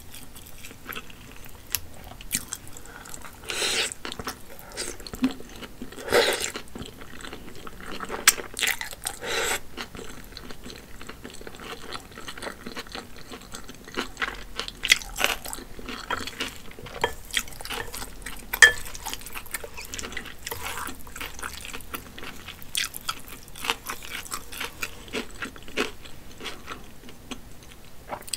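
Close-miked chewing of spicy wide hand-pulled Shanxi noodles. Steady wet mouth sounds with many short clicks, and a few louder bursts in the first ten seconds or so.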